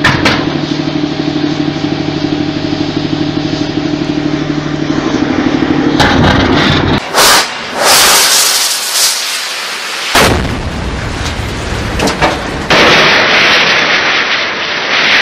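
Weapons firing and blasts: a steady mechanical drone for about six seconds, then several loud blasts with rushing noise after them.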